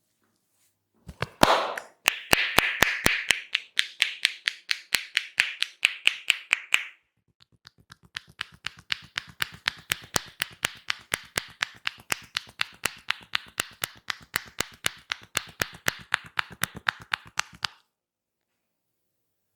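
Barber's hands tapping rapidly on a person's head in a head massage, about five strikes a second. It comes in two runs: the first starts about a second in and has a hollow ring, then after a short break a longer run stops a couple of seconds before the end.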